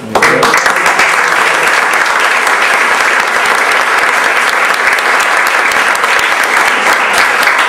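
An audience applauding: the clapping breaks out suddenly at the start and then keeps up loud and steady.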